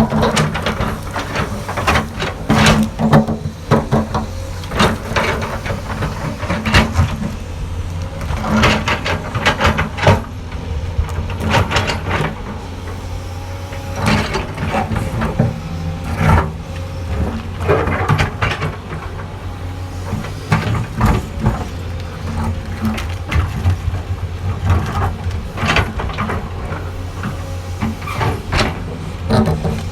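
Excavator at work: its diesel engine runs steadily throughout, under repeated short clanks and scrapes.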